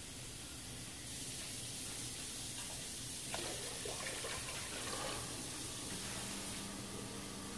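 Water poured from a plastic pitcher into a partly filled stainless steel stockpot, splashing into the water for a couple of seconds from about three seconds in. The pot is being topped up as a sous vide water bath.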